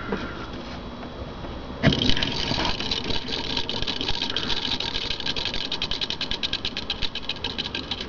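Small homemade magnet motor's rotor set spinning by hand about two seconds in, then coasting with a fast, even ticking from the rotor and its homemade reed switch of transformer-plate contacts. The motor is unpowered because it is not plugged in, so it is only freewheeling.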